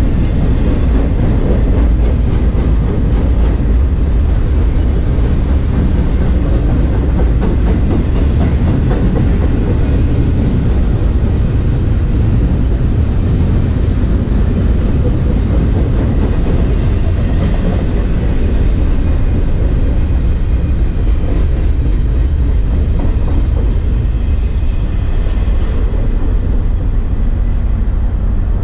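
Double-stack intermodal container cars rolling past, their wheels running steadily on the rails, with heavy wind buffeting the microphone throughout; the end of the train passes in the second half and the wind rumble carries on.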